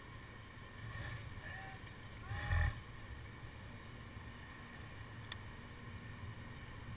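Wind rumbling on the microphone. There is a brief louder bump about two and a half seconds in and a single sharp click a little after five seconds.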